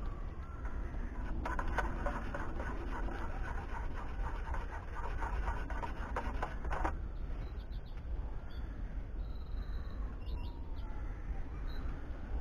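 Crow-family birds croaking away outside, over a steady low rumble.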